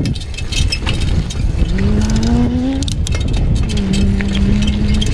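Wind rumbling over the microphone of a camera on a moving bicycle, with the bike rattling and clicking over the road surface. A humming tone rises slightly about two seconds in, then holds steady near the end.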